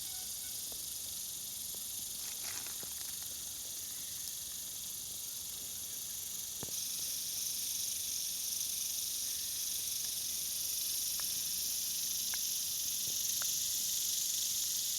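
Steady hiss of water spraying from hanging mini-sprinklers, stepping up louder about seven seconds in, with a few faint ticks.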